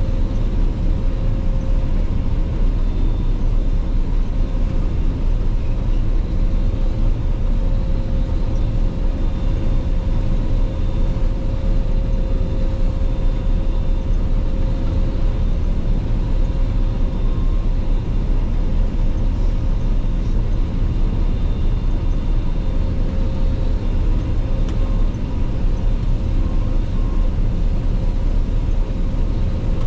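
Claas Lexion 480 combine harvester running steadily under load, a constant deep rumble with a faint steady whine riding over it.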